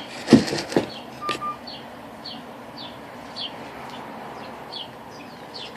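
A few sharp clicks and crackles just under a second in, then a small bird chirping over and over: short, high, falling chirps about twice a second.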